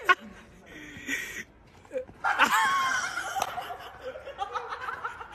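Young people laughing and shouting, with a high rising yell about two and a half seconds in and a sharp knock at the very start.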